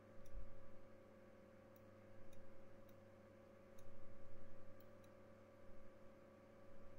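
About seven faint, sharp clicks at uneven intervals from input at a computer while sculpting, over a steady low electrical hum. A few soft low bumps come and go.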